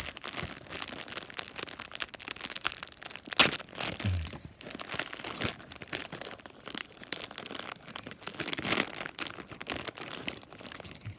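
Crinkling and rustling of plastic packaging with scattered irregular clicks as small plastic Lego pieces are handled for building.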